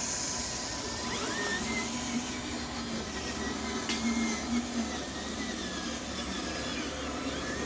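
Small electric motor and gearbox of a radio-controlled truck whirring steadily, its whine wavering slightly in pitch.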